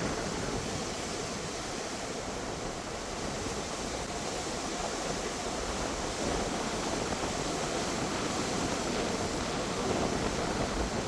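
Pacific Ocean surf washing ashore in a steady rush of noise, with a wave surging a little louder near the end.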